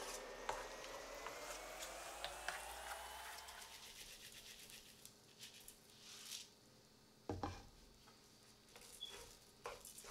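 Wooden spatula stirring and scraping a minced meat and tomato mixture in a nonstick pan. Then uncooked rice is stirred in, with soft scattered clicks and scrapes, one sharp knock about seven seconds in, and a quick run of small clicks near the end. A faint whine with a slowly bending pitch runs under the first few seconds.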